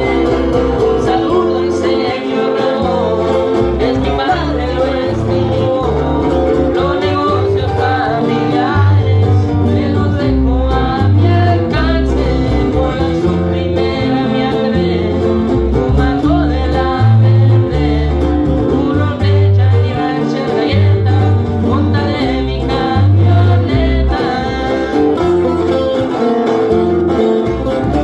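Live acoustic regional Mexican-style music: a six-string and a twelve-string acoustic guitar strummed and picked together, with a man singing into a microphone over deep, changing bass notes.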